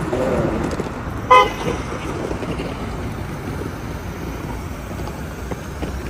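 Steady city street traffic noise, with one short car horn toot about a second in.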